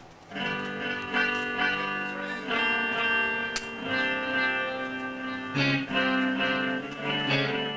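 Electric guitar played through an amplifier, chords struck and left to ring, with a new chord struck every second or two.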